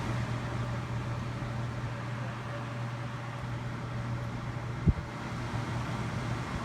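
Honeywell CHS122AE evaporative air cooler running with a steady low hum over fan noise, a noise the owner calls high and links to the oscillate function and the water pump. A single low thump about five seconds in.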